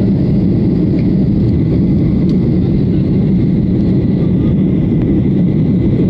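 Jet airliner's engines and airflow heard inside the cabin during the climb after takeoff: a steady low rumble with a faint high tone running through it.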